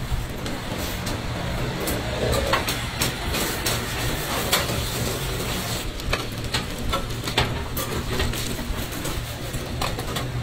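Food-stall ambience: a steady low hum under a noisy background, with scattered clicks and knocks throughout.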